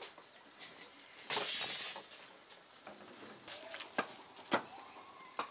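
Building work with hand tools: a rough scraping swish lasting about half a second, then three sharp knocks spaced about half a second to a second apart.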